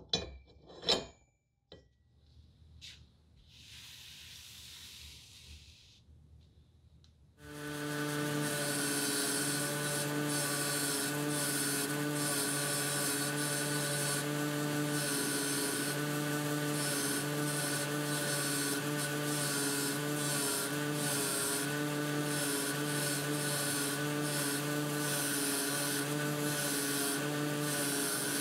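A few handling clicks and a soft hiss, then about seven seconds in a bench grinder comes in running steadily: a motor hum under a continuous rough, fluttering grinding rasp as a steel bolt is held against its abrasive wheel.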